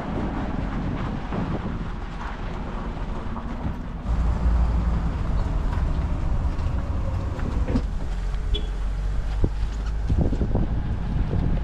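Road rumble and wind buffeting on the microphone of a camera riding on a jet ski towed on its trailer, with a few short clunks and rattles. The low rumble gets louder about four seconds in.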